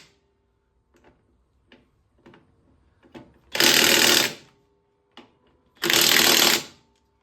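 DeWalt DCF899 20-volt half-inch cordless impact wrench hammering lug nuts tight in two bursts of just under a second each, about two seconds apart, with light clicks between them. The nuts are left-hand threaded, so the wrench is run in reverse to tighten them.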